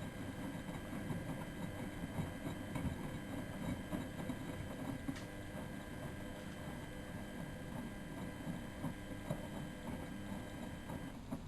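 Miele Novotronic W914 washing machine turning its drum during the wash: a steady motor whine over the tumbling and sloshing of wet laundry, with small knocks. The motor stops suddenly near the end as the drum pauses.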